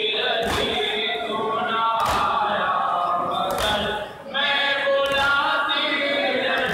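A crowd of men chanting a noha together, with sharp strikes of matam (chest-beating) landing about every second and a half. The chanting drops away briefly a little past the middle, then picks up again.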